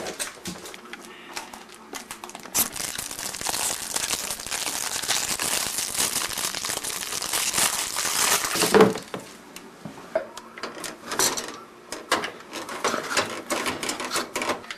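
Cellophane wrap on a box of microwave popcorn crinkling as it is torn open and pulled off, a dense crackle lasting about six seconds, then scattered rustles and clicks.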